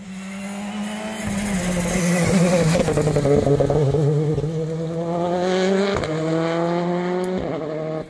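Rally car approaching and passing at speed on a tarmac stage, then accelerating away with its engine note rising and two upshifts, one at about six seconds and one shortly before the end.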